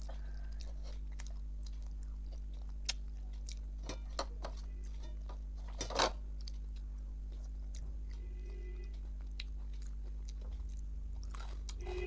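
Close-miked chewing of a meal of rice, dal and fish: scattered wet mouth clicks and smacks, one louder about six seconds in, over a steady low hum.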